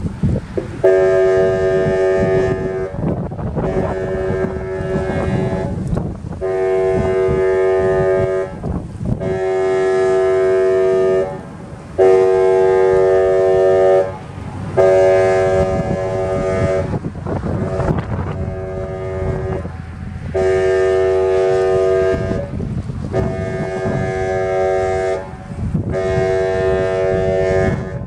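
Whelen WPS-2800-series electronic siren sounding its air horn tone in about ten steady blasts, each about two seconds long with short gaps between them. Wind rumbles on the microphone underneath.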